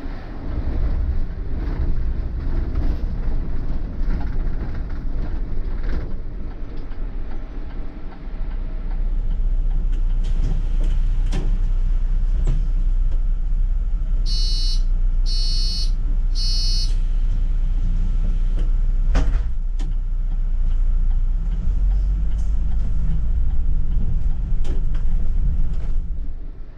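City bus in motion, its engine and road noise rumbling low and steady, growing a little louder about a third of the way in. About halfway through come three short electronic beeps in quick succession, with a few scattered clicks and rattles.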